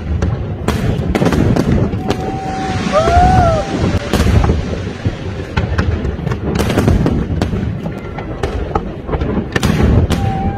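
Aerial fireworks shells bursting in a large display: many sharp bangs at irregular intervals over a continuous low rumble of the barrage.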